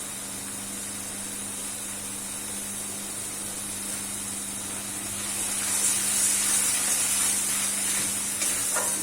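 Masala paste with freshly added ground spices sizzling in a pan as it fries: a steady hiss that grows louder a little over halfway through, with a few light clicks near the end.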